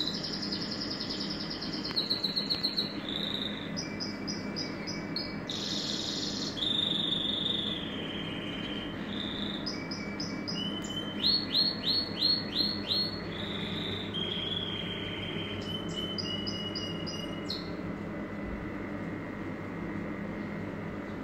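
Pet canary singing a long, varied song of fast trills, repeated chirps and whistled notes, with a run of about six loud repeated notes midway.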